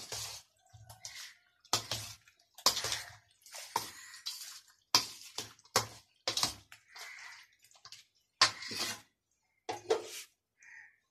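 Steel spoon stirring a wet mix of potatoes, chickpeas and chopped vegetables in a stainless steel platter: irregular scrapes and wet slops about once a second, stopping near the end.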